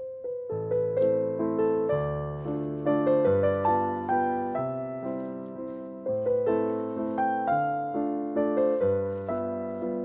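Background piano music: a slow melody over changing chords, each note struck and left to fade.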